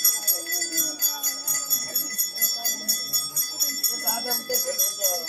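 Jingle bells shaken in a steady, rapid rhythm with a continuous ringing shimmer, and voices of the gathered crowd underneath.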